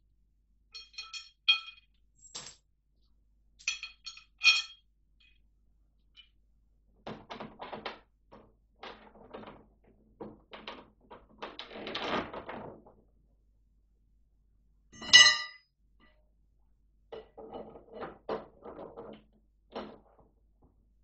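Metal tow-bar fittings clinking and knocking against each other and against a plastic ahkio sledge as they are handled and fitted. Bright ringing clinks come a few times early on and once loudly about fifteen seconds in, with scraping and rubbing of the hollow plastic hull in between.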